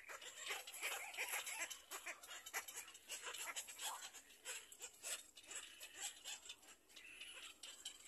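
Black-crowned night heron chicks giving begging calls to the adult at the nest: a rapid chatter of short calls and clicks, easing off near the end.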